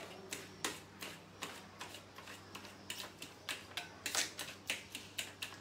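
Metal fork mashing roasted brinjal on a steel plate: light, irregular clicks and taps of the fork on the plate, coming faster in the second half.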